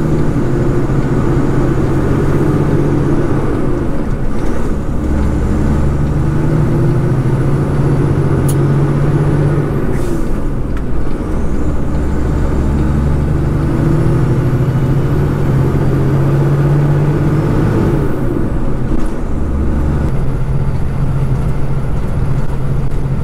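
Heavy truck's diesel engine pulling hard, its steady drone broken by three short dips in the engine note, about six to seven seconds apart, as the driver changes up through the gears of the Kenworth road train.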